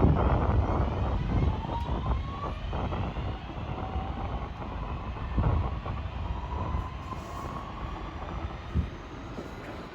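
Class 323 electric multiple-unit train pulling away from the station, its traction motors giving a whine that rises slowly in pitch as it accelerates, over a rumble of wheels on rail that fades steadily. Two sharp clunks from wheels over rail joints, one about halfway and one near the end.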